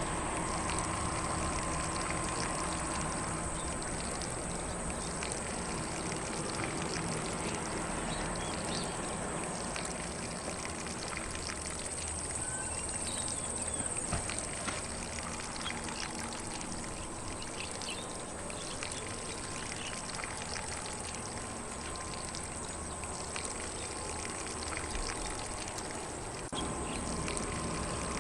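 Lawn sprinkler spraying water across grass: a steady, even rush of water.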